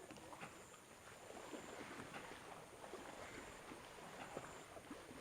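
Faint, irregular soft slaps and rubbing of hands on skin during a head and back massage.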